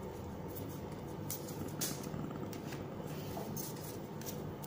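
Magic: The Gathering cards being handled and flicked through by hand, with a few brief soft snaps of card against card, over a steady low hum.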